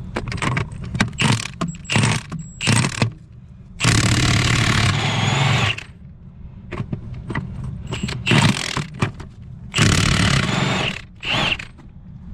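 1/2-inch Milwaukee cordless impact wrench hammering 33mm lug nuts off a semi tractor's wheel: a run of short trigger bursts, then two longer bursts of about two seconds each as nuts break loose and spin off, with more short bursts between. A low steady rumble runs underneath.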